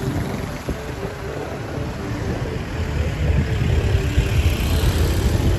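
Road traffic close by: car engines running and vehicles passing, a low uneven rumble that grows louder in the second half.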